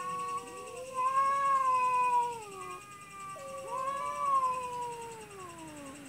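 Two cats yowling at each other in a fight standoff: long, drawn-out wavering wails that overlap, swelling loudest about a second in and again around four seconds.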